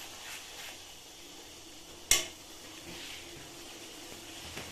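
Flat metal spatula stirring thick sauce in a metal kadai, with a faint steady sizzle, and one sharp clank of the spatula against the pan about two seconds in.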